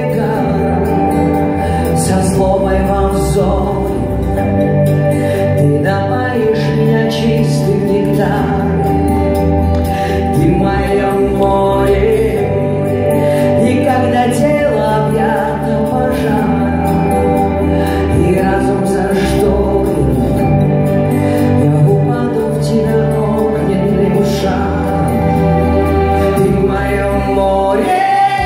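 Live pop band playing with a woman singing lead: drums, bass, electric guitar and keyboards, heard from the audience seats of a concert hall.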